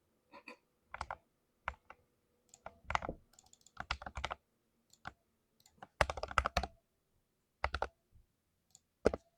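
Keys of a 60% mechanical keyboard with lubed Cherry MX switches being typed on: irregular runs of quick keystrokes, some single presses, with short pauses between.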